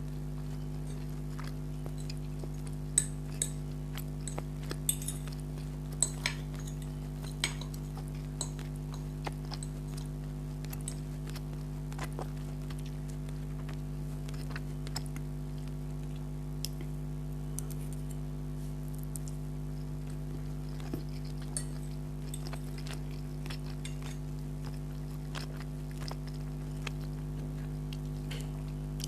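Eating sounds from spaghetti: a fork clinking and scraping on a plate, with chewing. A handful of sharp clicks come between about three and seven seconds in, then fainter ones, all over a steady low hum.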